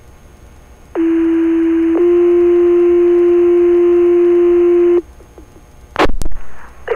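Two-tone sequential fire paging tones over a radio channel: a one-second tone followed by a second, close tone held for about three seconds, with radio hiss behind them. They set off the firefighters' pagers ahead of the voice dispatch. About a second after the tones end, two sharp radio clicks are heard.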